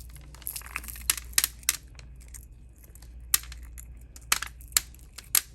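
Small aquamarine stone chips clicking sharply and irregularly as they are handled and dropped, about ten clicks in all.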